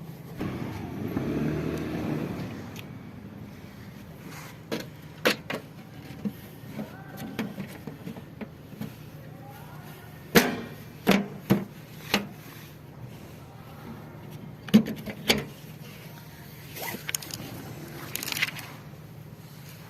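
Scattered sharp knocks and clicks, like parts and tools being handled during repair work, over a steady low hum. A brief rushing noise comes about a second in and a short rasp near the end.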